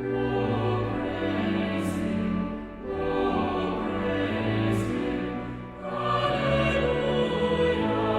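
A choir singing a hymn in long held phrases, with short breaks between phrases about three and six seconds in.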